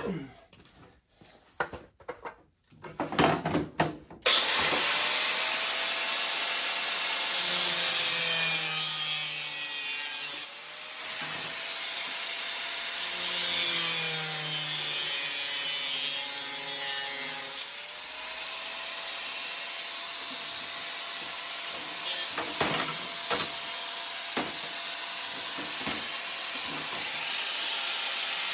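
Cutoff wheel grinding through the metal pan of a motorcycle engine guard. It starts after a few seconds of quiet handling and runs as a steady, loud grinding hiss, its pitch sagging and recovering as the wheel bites, with brief let-ups between passes.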